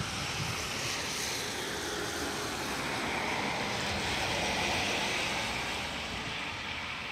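A car driving past on a wet road, its tyres hissing on the wet surface; the sound swells to a peak about four to five seconds in and then fades away.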